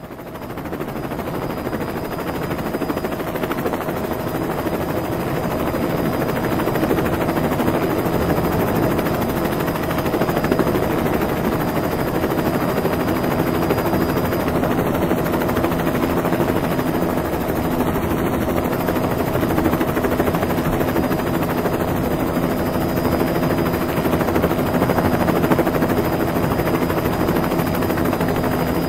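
Helicopter in flight, a steady rotor chop with engine noise, fading in over the first second or two.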